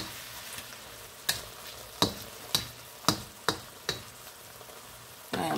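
Chicken frying in a pan with a steady sizzle while it is stirred, a utensil knocking sharply against the pan about half a dozen times in the first four seconds.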